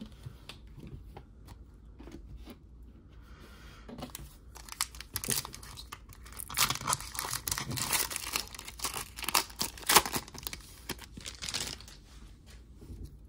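Foil wrapper of a Panini Prizm basketball card pack being torn open and crinkled by hand: a dense crackling run that starts about four seconds in, loudest near ten seconds, after light card handling at the start.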